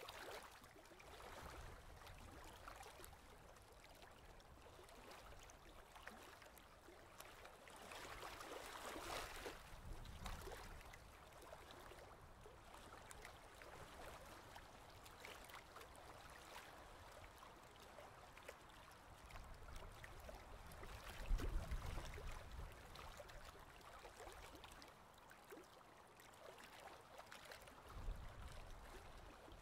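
Faint water trickling and splashing from kayak paddle strokes, with a couple of low bumps, the louder one about two-thirds of the way through and another near the end.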